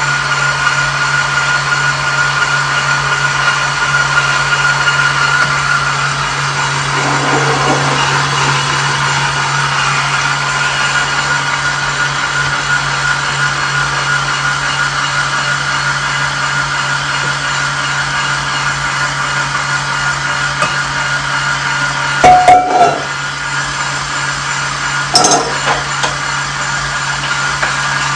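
Stand mixer with a meat grinder attachment running steadily with a hum and a high whine while chicken and vegetables are fed through and pushed down into the hopper. Two short loud knocks come near the end.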